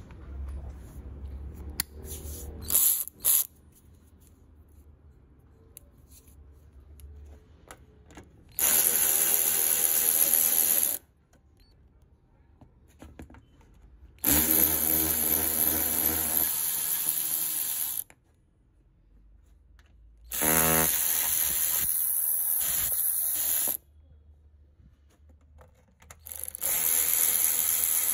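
Cordless electric ratchet spinning a 10 mm socket to back out bolts, running in four steady bursts of two to four seconds each that start and stop abruptly. Two sharp knocks come about three seconds in.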